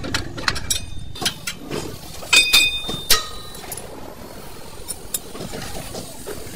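Metal clinks and knocks of tools and parts on a bus wheel's brake assembly, with two loud ringing metal strikes about two and a half and three seconds in.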